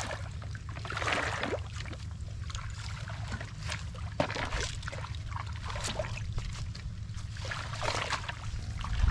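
Boots wading through shallow, muddy water, sloshing and splashing with each stride, louder about a second in, around four to five seconds in and near the end, over a steady low rumble.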